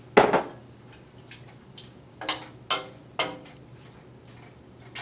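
A metal spoon knocking against the side of a stainless steel cooking pot while ground beef and water are stirred. There is a loud clank just after the start, then a run of ringing clinks about half a second apart in the middle.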